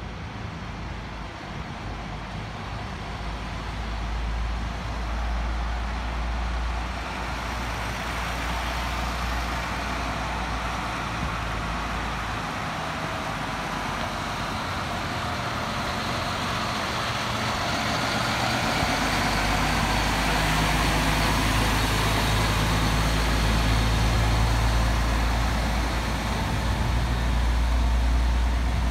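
Heavy-haulage lorries passing on a street, towing a long multi-axle low-loader: steady diesel engine hum and tyre noise, growing louder over the second half as the load draws alongside.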